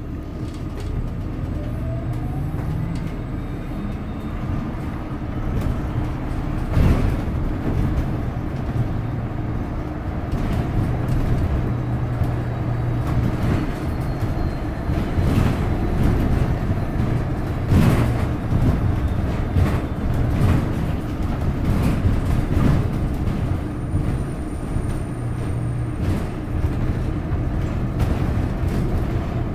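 Inside a moving city bus: steady hum from the bus's engine and drivetrain with road noise, broken by several sharp rattles or knocks.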